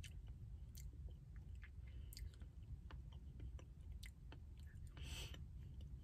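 Faint, quiet chewing and small mouth clicks from a person eating a mouthful of soft-serve Blizzard with soft sugar cookie pieces, over a low steady hum. A brief soft hiss comes about five seconds in.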